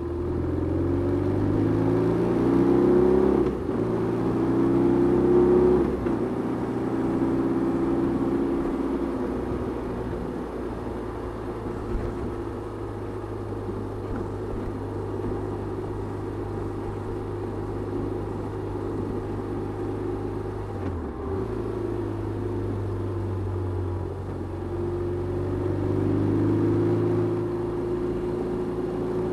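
2008 BMW R1200RT's air/oil-cooled boxer twin engine under way, pulling up through the gears: the revs climb twice in the first six seconds, each climb broken by a gear change. It then settles into a steady cruise, with a short break about 21 seconds in and the revs rising again near the end.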